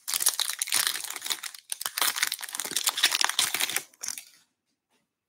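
Foil wrapper of a Bowman baseball card pack being torn open and crinkled by hand: two spells of dense crackling, about two seconds each, the second ending about four seconds in.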